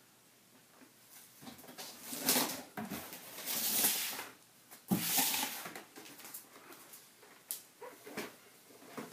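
Bubble wrap and a cardboard box rustling and crackling in several bursts as the helmet is handled and the box shoved aside, followed by a couple of light knocks as the plastic helmet is set down.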